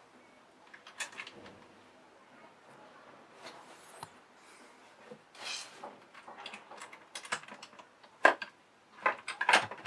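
Lock parts being handled and fitted onto a door: scattered light clicks and knocks, a brief scrape about halfway through, and a few sharper knocks near the end.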